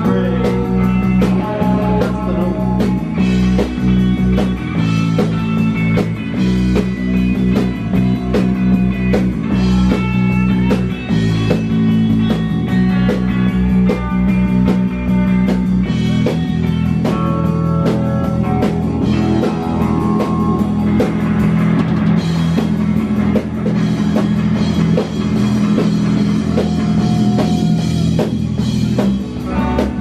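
Live rock band playing loudly: electric guitars, electric bass and a drum kit.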